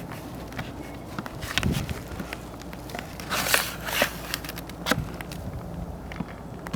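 Scattered knocks, scrapes and rustles as a hive tray is handled and cleaned out. The sharpest cluster of scrapes comes about three and a half seconds in.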